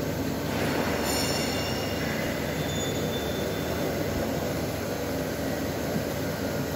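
Steady mechanical noise, with faint high-pitched whines from about one to three seconds in.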